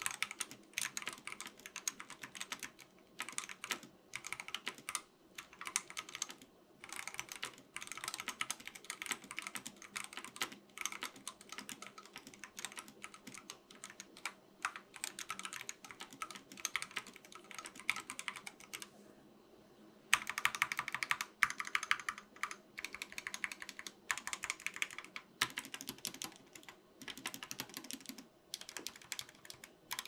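Typing on a Monstargear Ninja71 mechanical keyboard fitted with C3 Equalz x TKC Banana Split linear switches, the board sitting directly on a wooden desk with no desk mat. Runs of keystrokes with short breaks, and one longer pause about two-thirds of the way through.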